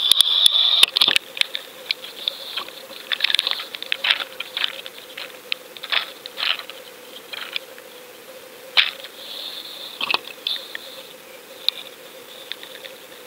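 Muffled clicks, taps and knocks on an underwater fishing camera's sealed housing as it comes out of the water and is handled, with drips of water, the taps thickest in the first second. A low steady hum runs underneath.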